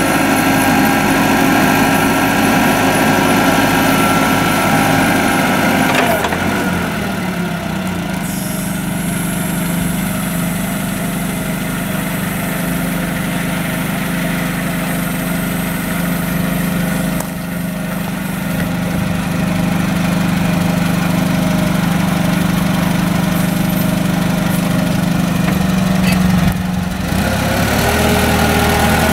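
A Unicarrier CFS60 forklift's Nissan propane engine running. It is held at higher revs for about the first six seconds, then drops to a steady idle while the raised mast comes down, and picks up again near the end as the forklift moves off.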